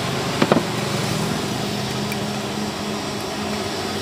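Steady rushing noise with a low hum at a noodle stall's cooking station, with a brief clink of kitchen utensils about half a second in as the bowl is being assembled.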